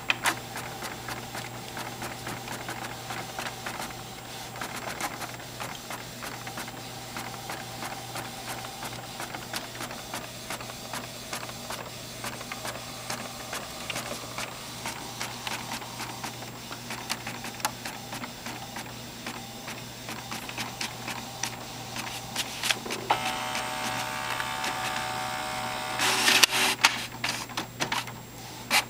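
Canon PIXMA MP560 inkjet printer running through a print job: repeated mechanical clicking and whirring of the carriage and paper feed. About three-quarters of the way through a steadier motor whine sets in, with the loudest clattering near the end as the paper feeds out.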